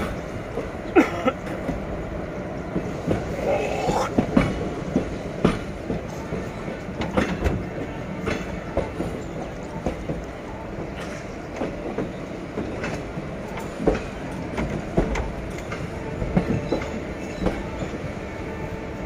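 Passenger train wheels running over rail joints and points, heard from the side of the coach: a steady rumble with irregular clanks and knocks, and a short wheel squeal about four seconds in.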